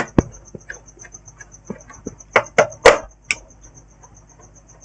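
Scattered sharp clicks and light knocks from a laptop being handled, a cluster of them about two and a half to three and a half seconds in. A faint, rapid, evenly pulsing high-pitched tone runs underneath.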